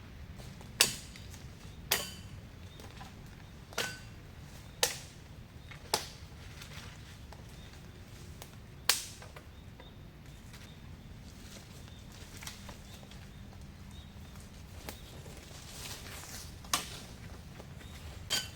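A series of about eight sharp knocks or cracks at irregular intervals, most of them in the first half, each ringing out briefly.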